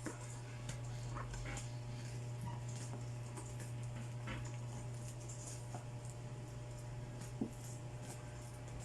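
A dog whimpering softly over a steady low hum, with scattered light clicks and rustles.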